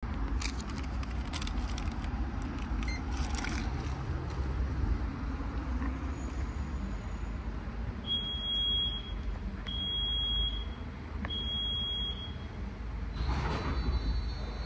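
WashTec SoftCare² Pro rollover car wash starting its programme: three high beeps, each about a second long, over a steady low rumble. Near the end the spray of the chemical prewash starts hissing.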